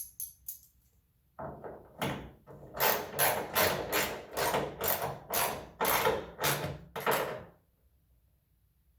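Ratchet wrench tightening the bolt on a hood-strut bracket at the hood hinge: a brief clatter, then about ten short ratcheting strokes, roughly two a second, that stop near the end.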